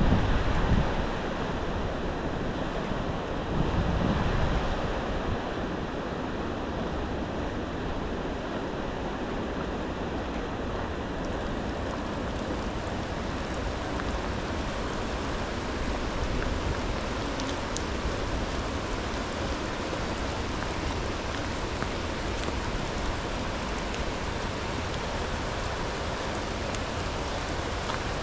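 Swollen, fast-flowing river rushing steadily, with low buffeting on the microphone near the start and again about four seconds in.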